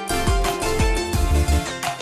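Background music with pitched instrumental notes over a steady beat.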